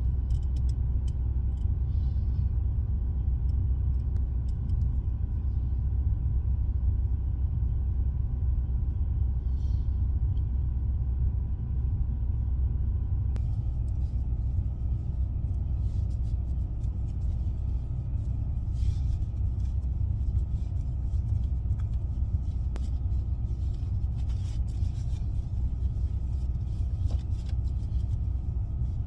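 Starcraft conversion van on the move: a steady low rumble of engine and road noise with no change in pace.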